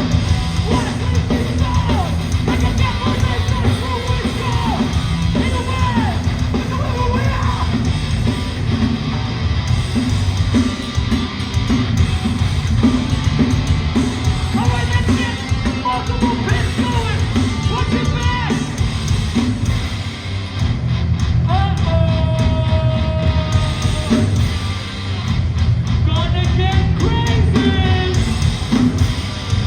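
Hardcore band playing live and loud: distorted guitars and a drum kit with yelled vocals.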